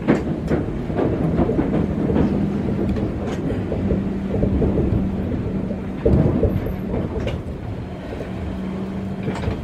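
Yui Rail rubber-tyred straddle-beam monorail car running along its guideway, heard from inside the car. A steady rumble carries a steady low hum, with a few light clicks and a louder bump about six seconds in.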